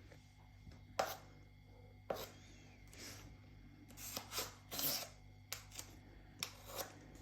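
A spoon scraping and tapping against a cup while scooping out thick shaving foam, in a dozen or so short, irregular scrapes and knocks, the loudest about five seconds in.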